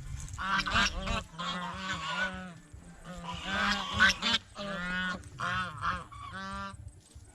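White domestic geese honking repeatedly, short nasal calls following one another in quick, often overlapping series.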